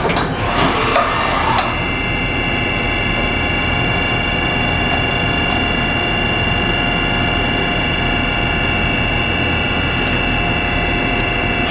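Okuma & Howa Millac 438V CNC vertical machining center running a short program. A brief rushing noise in the first second and a half gives way to a steady whine of several high tones over a machine hum, as the 24 hp integrated spindle holds its speed.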